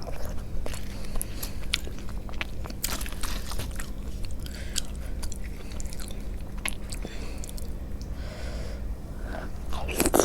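A person eating close to the microphone: chewing and biting, with many small wet mouth clicks and smacks scattered through.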